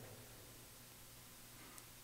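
Near silence: faint room tone with a weak low hum.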